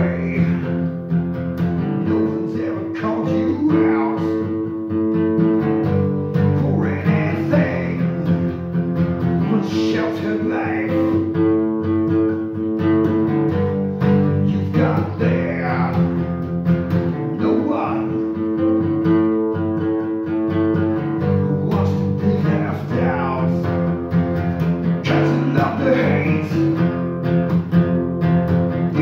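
Acoustic guitar played solo, a picked chord pattern whose phrase repeats about every three and a half seconds.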